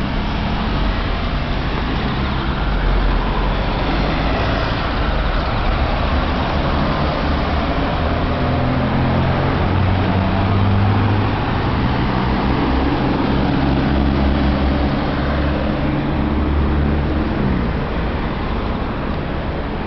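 Street traffic at an intersection: vehicle engines running over steady road noise, with a low engine hum that shifts in pitch and stops shortly before the end.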